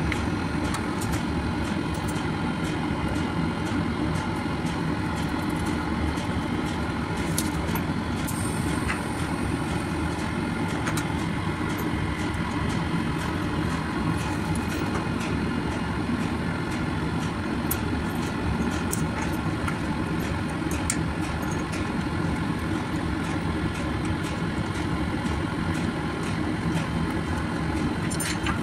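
Steady drone of running plant machinery, a constant hum with several steady tones, with scattered light clicks and taps as a plastic valve and pipe fittings are handled.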